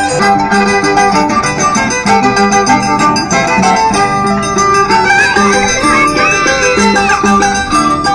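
Andean scissors-dance music: violin with harp playing a quick traditional melody.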